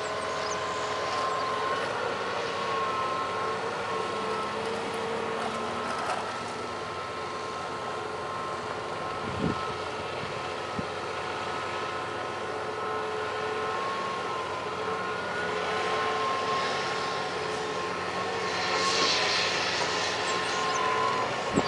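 John Deere excavator's diesel engine running with a steady, slightly wavering drone, with two short knocks about halfway through.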